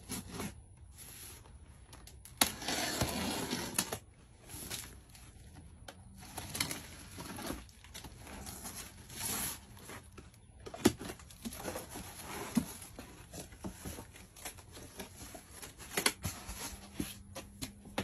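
A large cardboard box being opened by hand: packing tape pulled off and cardboard flaps folded back, with scattered knocks and rustling of cardboard. The loudest and longest stretch of noise comes about two to four seconds in.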